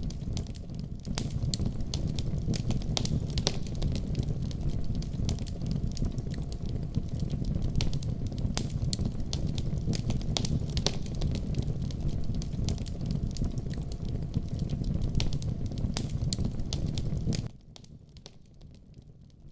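Wood fire burning in a wood stove: frequent sharp crackles and pops over a steady low rumble. Near the end the sound drops suddenly to a much quieter, fainter crackle.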